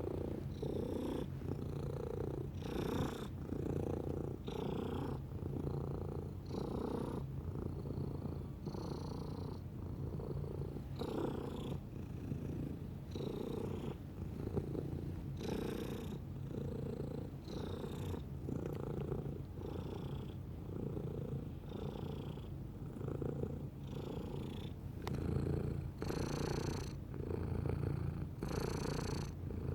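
A domestic cat purring continuously at close range: a steady low rumble that swells and eases with its breaths, about once a second.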